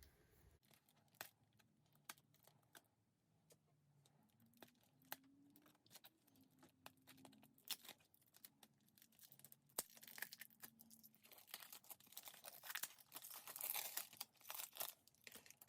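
Plastic wrapping being torn and crinkled off a CD jewel case, with scattered small clicks of the case being handled; the tearing and crinkling are loudest near the end.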